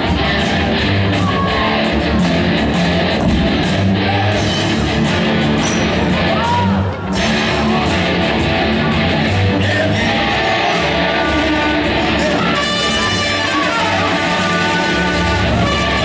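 Live rock band playing: electric guitars over bass and drums, with a brief drop about seven seconds in and a falling run of guitar notes near the end.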